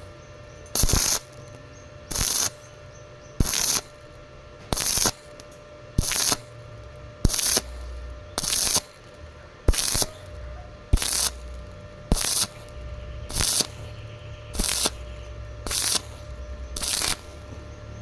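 Stick-welding arc on thin galvanized square tube, struck and broken in short crackling bursts about once every second and a quarter: the intermittent stitch technique used to avoid burning through thin metal.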